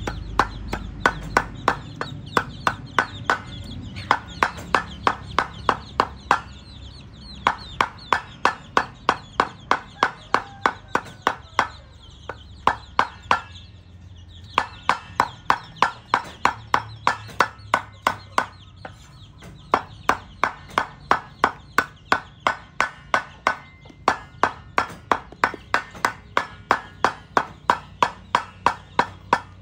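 Kitchen knife mincing grilled fish flesh on a wooden chopping board: a steady run of sharp chops, about three a second, broken by several short pauses.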